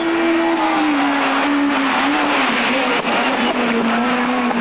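Renault Clio Maxi Kit Car's 2.0-litre four-cylinder rally engine running at high revs. Its note is held, then sags slowly and wavers as the car slides through the corner.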